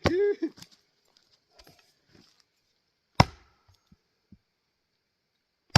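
Two axe strikes into a Douglas fir round, about two and a half seconds apart, each a single sharp chop; the round is a tough, pitchy one.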